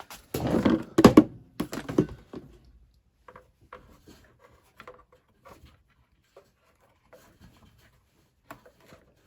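Handling noise from fitting a fill hose and its spring hose clamp, held open in a quick-grip clamp, onto a plastic washing-machine soap dispenser: a cluster of knocks and rubbing in the first two seconds, then scattered light clicks and taps.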